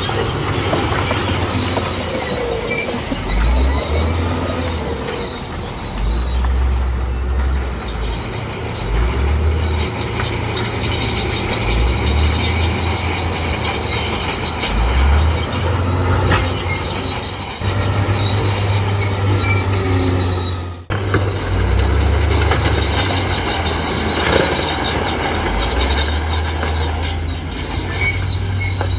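Bulldozer's diesel engine working under load, rising and falling, with a high-pitched squeal from its steel tracks as it pushes rock fill.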